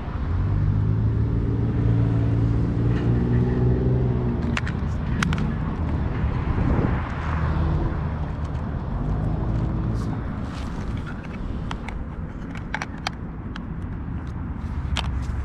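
An engine running with a low, pitched hum that strengthens and eases off, with scattered sharp clicks.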